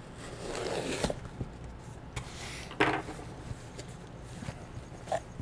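Handling of a cardboard shipping box and its packing: a soft rustle in the first second, then scattered clicks and one sharp knock about three seconds in.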